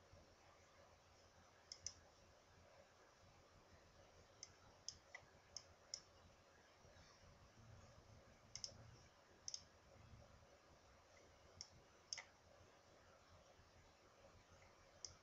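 Computer mouse button clicking about a dozen times at irregular intervals, single sharp clicks and quick pairs, over near-silent room tone.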